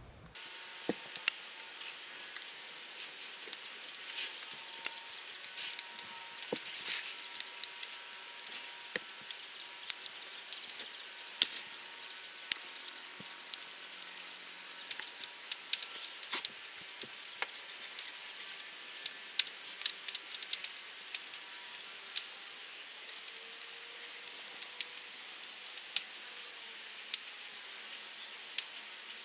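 Wood fire burning in a drum-can wood stove, crackling with irregular sharp pops over a steady hiss.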